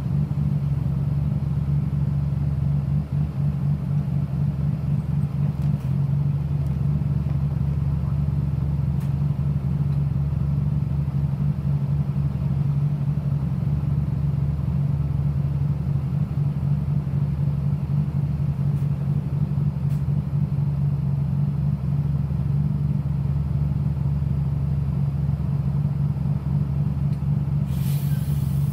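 Diesel engine of a Nishitetsu city bus idling while the bus stands still, heard from inside the cabin as a steady low drone. A short burst of hiss comes near the end.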